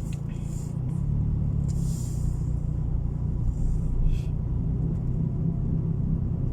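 Car driving, a steady low engine and road rumble that grows a little louder about a second in.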